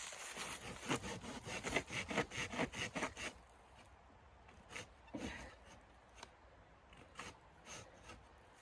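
Rhythmic rubbing strokes on wood, about three or four a second for the first three seconds, then a few scattered light clicks and scrapes.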